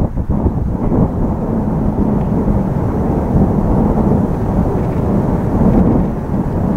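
Kawasaki T-4 jet trainers flying in close formation, their turbofan engines heard from the ground as a steady, loud low rumble.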